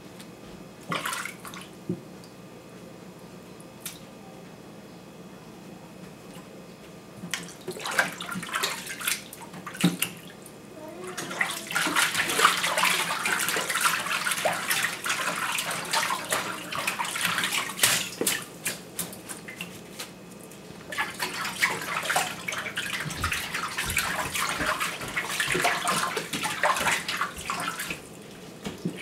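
Water sloshing and splashing in a stainless steel kitchen sink as leafy greens are swished and rinsed by hand, in two long stretches with a short break between them. Before that there are a few soft knocks and rustles of leaves and bowl.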